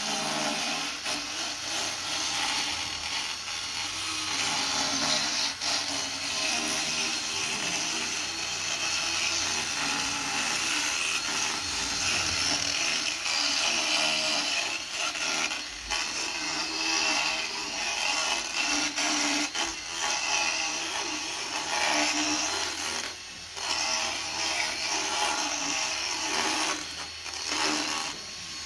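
Motorized equine dental float, a Milwaukee cordless power tool, grinding a horse's molars: a continuous high whirring, rasping grind that cuts out briefly twice near the end. It is filing off the sharp points on the teeth.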